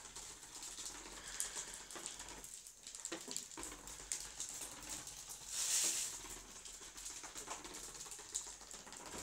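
Plastic toy tricycle rolling and rattling over a tiled floor, a light patter of small clicks with a louder rush of noise near six seconds in.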